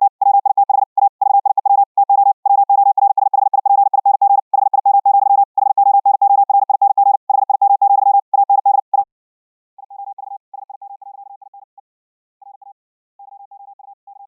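High-speed Morse code at 60 wpm: a single steady-pitched tone keyed on and off very rapidly. About nine seconds in it stops with a click, then the keying carries on much quieter and in broken patches.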